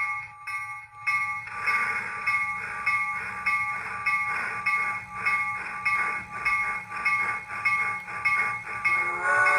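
Digital sound system of a brass PRR K4 4-6-2 model steam locomotive playing steam exhaust chuffs, about two a second, starting about a second in, over a steady hiss and hum. A steam whistle sounds near the end.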